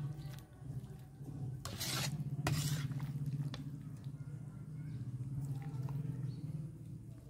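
Metal ladle stirring and scraping through thick, saucy chilli paneer in a kadhai, with a few sharper scrapes of metal on the pan about two seconds in, over a steady low hum.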